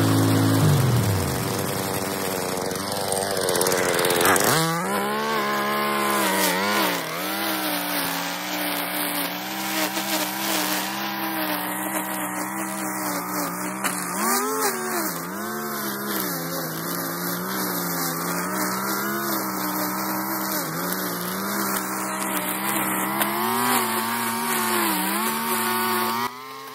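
A Skag 52-inch mower's engine shuts off, its pitch falling away within the first second or so. About four and a half seconds in, a Stihl string trimmer starts and runs while edging grass along a concrete driveway, its pitch rising and falling as the throttle is worked.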